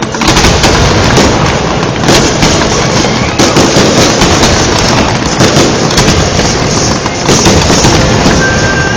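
Fireworks display going off in a dense, unbroken run of bangs and crackles.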